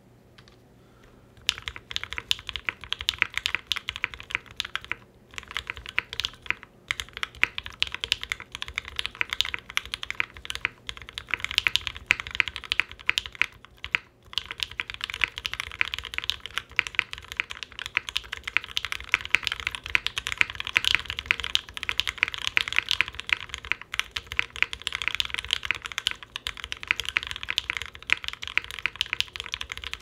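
Continuous fast typing on a 60% aluminium mechanical keyboard with lubed Gateron Ink Black V1 linear switches on a leaf-spring aluminium plate, GMK ABS keycaps and a shelf-liner-damped case: dense keystroke clacks. The typing starts about a second and a half in and pauses briefly a few times.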